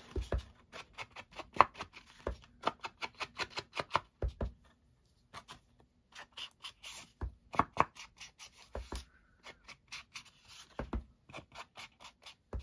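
Mini foam ink blending tool dabbing ink onto a card bookmark's edges: a quick run of soft taps, several a second, with a few heavier knocks and two short pauses.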